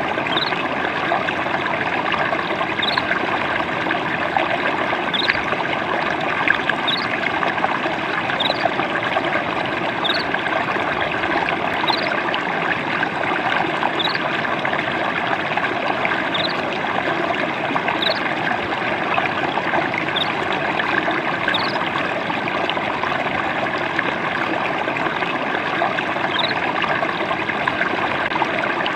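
Water trickling and splashing steadily, like a small stream. Short, high chirps recur every one to two seconds over it.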